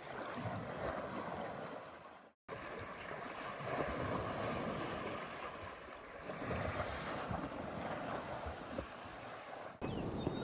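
Water sloshing and splashing in a steady, swelling rush, with a brief dropout about two seconds in and a change of sound near the end where the footage is cut.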